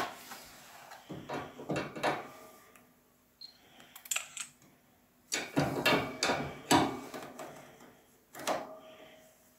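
Clicks, knocks and rustles of hand work with water pump pliers on a radiator valve fitting, coming in several short spells with quiet gaps between.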